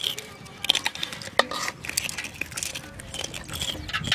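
Wet handling noises as a fish is held and unhooked in a shallow metal basin of water: scattered sharp clicks, slaps and small splashes.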